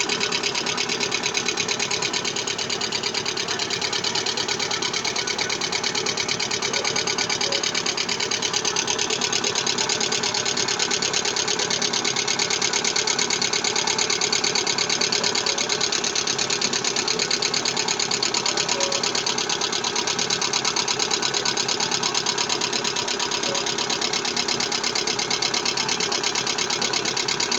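Lada Vesta engine running with a fast, steady knocking rattle, the knock that goes with its low oil pressure.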